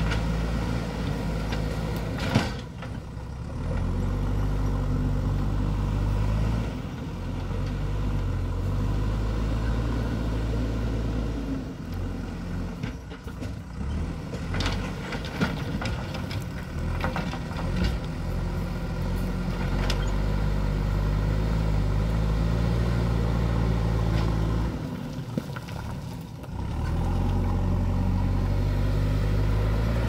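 JCB backhoe loader's diesel engine running under load as the front bucket works the dirt road, its pitch stepping up and down and easing off briefly three times. A few sharp knocks stand out above it.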